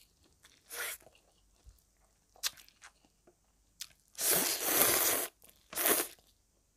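A person slurping up mouthfuls of mixed noodles and chewing, in several short noisy draws; the longest, about four seconds in, lasts about a second.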